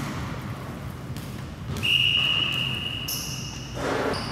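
A single steady whistle blast about two seconds in, lasting just over a second, typical of a referee's whistle stopping or restarting play in a gym basketball game. It is followed by a shorter, higher-pitched squeal and a brief burst of noise near the end.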